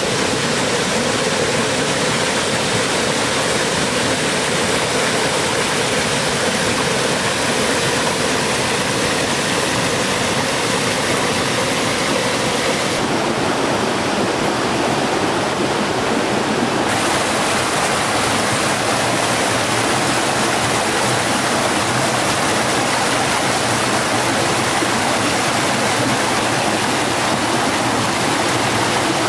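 Steady, loud rush of running water, like a stream or waterfall, unbroken throughout; the highest hiss thins out briefly around the middle.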